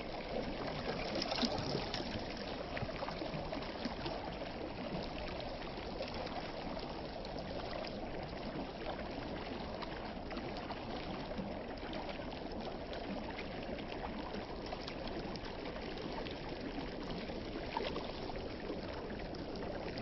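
Flowing water, a steady rushing and trickling.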